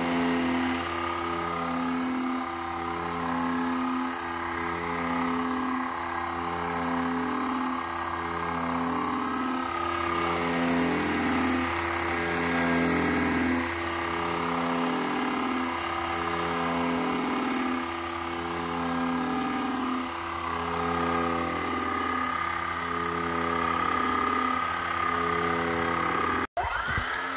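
Homemade generator rig running: a small brushless motor spinning a permanent-magnet alternator that feeds microwave-oven transformers and a spark gap, giving a steady electrical hum that swells and fades about every one and a half seconds. The sound drops out briefly near the end.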